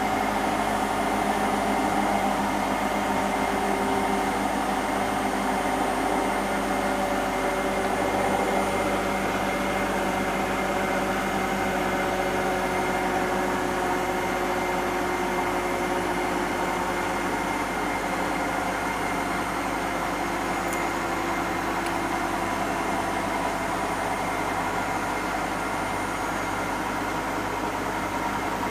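Hotpoint NSWM 843C washing machine with an inverter motor spinning its empty drum on a 1400 rpm spin cycle: a steady whine of several held tones over a rushing hum, a few of them drifting slightly in pitch, easing a little in level towards the end. The owner wonders whether the drum bearings might be starting to go.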